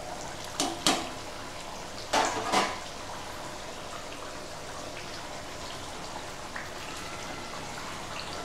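A steel pan lid clinks against the pan a few times in the first three seconds as it is lifted off. After that, thick chicken curry bubbles steadily at a simmer in the open pan.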